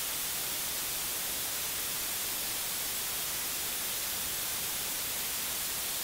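Steady, even hiss, brightest in the high range, with no other sound in it.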